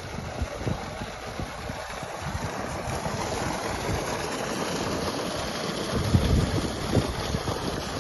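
Water gushing steadily from the outlet pipe of a solar-powered pump and splashing onto wet ground. Wind buffets the microphone in low rumbling gusts, strongest about six seconds in.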